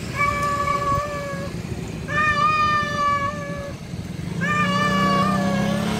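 Male domestic cat giving three long, drawn-out meows, each about a second and a half, the calling cry of a tom seeking a female. A low hum swells underneath near the end.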